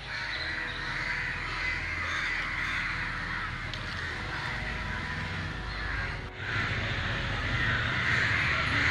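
A crowd of crows cawing continuously, many calls overlapping, with a brief drop about six seconds in.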